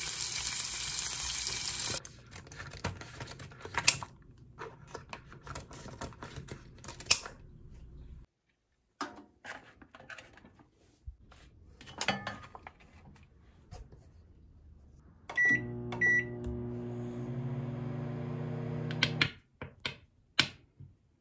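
Shrimp sizzling in a frying pan at first, then scattered handling clicks and knocks. Later a microwave oven beeps twice as its buttons are pressed, runs with a steady hum for about four seconds, and cuts off.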